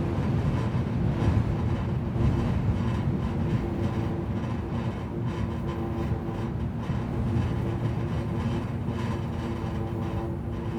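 Wind blowing across an electricity pole and its overhead wires. The wires hum in a few steady tones, like an aeolian harp, over a low wind rumble.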